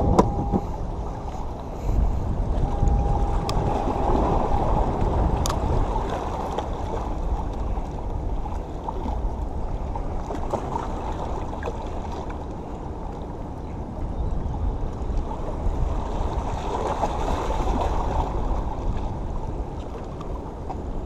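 Waves washing against the rocks of a jetty, a steady noisy wash that swells and eases, with wind rumbling on the microphone.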